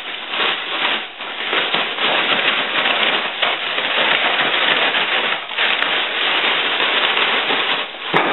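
Plastic bag holding chicken legs and flour being shaken: continuous rustling and crinkling of the plastic with the pieces tumbling inside, in uneven surges. A short sharp click near the end.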